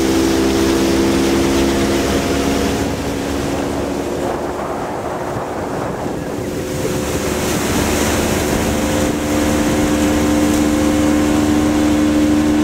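Motorboat engine running under way, with water rushing and wind on the microphone. The engine's note fades for a few seconds in the middle, then comes back steady.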